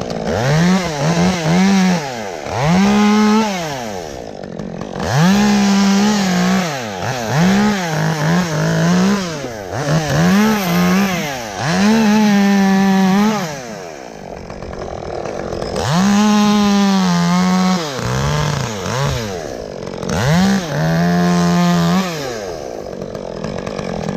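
Two-stroke chainsaw cutting limbs: it revs up to full throttle and holds for half a second to a second and a half, over and over, dropping back to idle between cuts.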